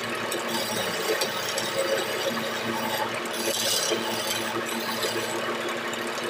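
Wood lathe motor running steadily while a hand-held turning chisel scrapes and cuts the spinning gamari-wood stair leg, a rough rasping over the motor hum, sharpest about three and a half seconds in.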